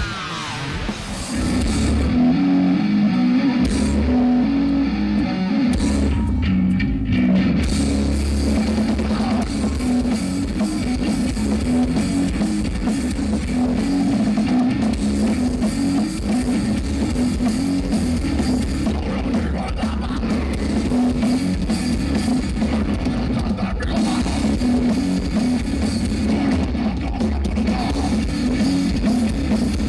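Heavy metal band playing distorted electric guitar riffs over a drum kit. It opens quieter, and the full band comes in about two seconds in and keeps going loud.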